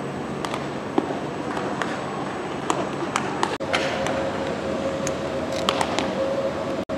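Open ballpark ambience during fielding practice: steady background noise with scattered sharp pops of baseballs smacking into leather gloves. After a brief dropout about three and a half seconds in, a steady low hum comes in under the pops.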